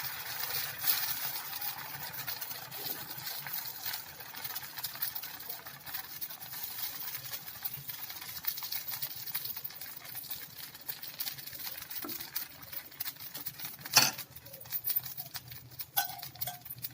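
Adai batter sizzling on a hot oiled dosa griddle: a steady hiss with scattered crackling pops that grow thicker near the end, and one louder knock about three-quarters of the way through.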